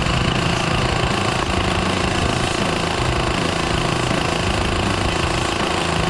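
Airsoft electric gun firing one long, continuous full-auto burst, its motor and gearbox whirring with rapid shot cycling; it starts abruptly and stops near the end.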